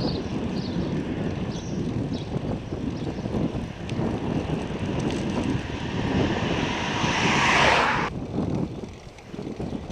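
Wind buffeting the microphone of a handlebar camera on a moving bicycle: a steady low rumble. A hiss builds over a few seconds and cuts off suddenly about eight seconds in.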